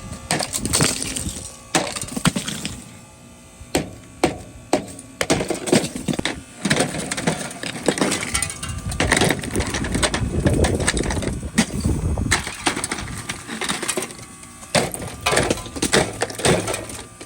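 Ice being broken and knocked off by hand: a run of sharp cracks, knocks and clinks of ice, some in quick clusters.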